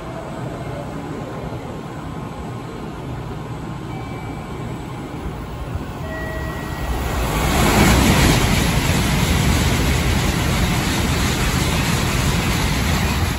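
N700S Shinkansen passing through at speed on the through track. A rush of air and rail noise builds from about six seconds in, peaks a couple of seconds later, and holds loud as the cars stream past.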